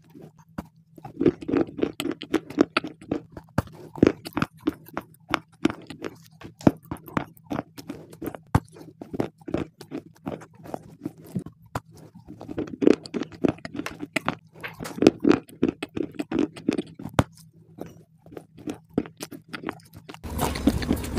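Close-miked biting and chewing of a piece of white shale stone: dense, crisp crunching and cracking in clusters, with short pauses between mouthfuls. Near the end it cuts to a louder, steady background.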